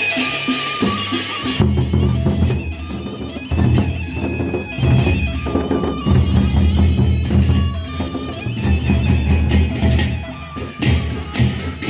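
Sasak gendang beleq ensemble playing: large double-headed barrel drums beat out a driving rhythm under clashing hand cymbals. The drums come in heavily about a second and a half in and ease off briefly twice.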